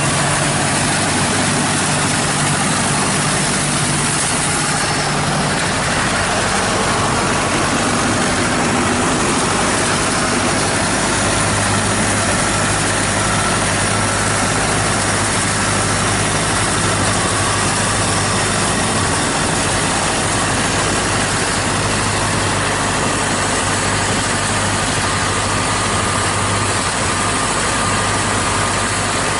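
Heavy farm machinery engine running steadily at an even pitch, with a constant low hum.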